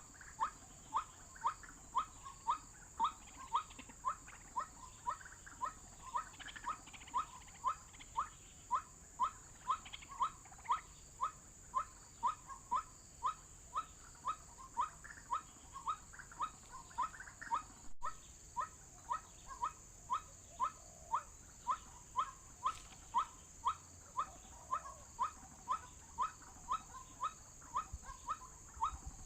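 White-breasted waterhen call played from an MP3 lure: short 'kruak' notes repeated evenly, about twice a second. Under it runs a steady high drone of insects.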